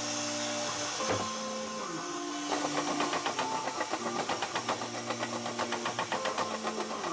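A power tool running steadily, with a fast rhythmic rattle and flutter from about two and a half seconds in.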